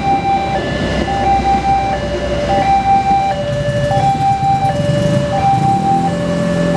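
Level-crossing warning alarm sounding a repeating two-tone high-low pattern, the tone changing about every 0.7 seconds, over the low rumble of a passing train. Near the end, as the barriers lift, the engines of waiting vehicles pick up.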